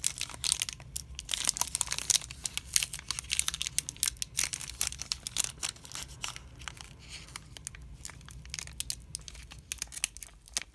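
Hockey card hanger box and foil pack being opened by hand: crinkling and tearing of the wrapper, a dense run of quick, irregular crackles.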